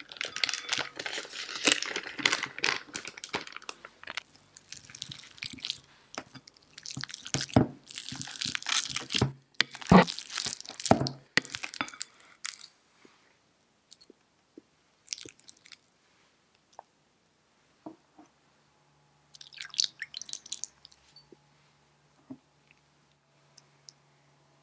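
Steamed pumpkin chunks tipped from a rustling sheet into a glass bowl, then mashed, with soft squelching and several sharp knocks against the glass, the loudest about ten seconds in. After that it goes mostly quiet, with scattered light taps and a brief rustle later on.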